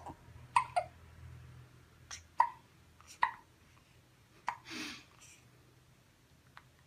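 Newborn baby hiccupping: about six short hiccups, roughly one a second, dying away about five seconds in.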